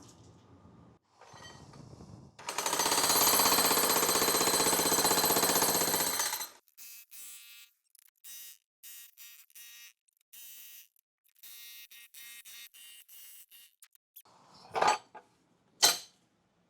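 Jackhammer breaking up the last piece of a basement concrete slab: one loud run of hammering lasting about four seconds, then a string of short, quieter bursts, and two sharp knocks near the end.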